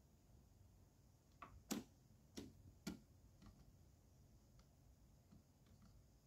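A few sharp clicks over near silence: three loud ones close together around the middle, then a handful of fainter ticks.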